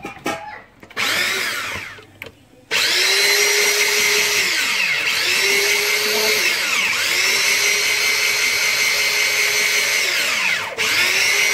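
Electric rotary drum grater running as it shreds carrot: a couple of short bursts as it is switched on, then a steady motor whine from about three seconds in, its pitch dipping briefly and recovering a few times.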